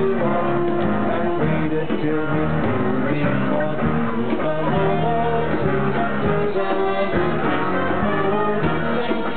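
Live band music amplified through PA speakers: a navy band playing a rock-style tune with held notes and chords.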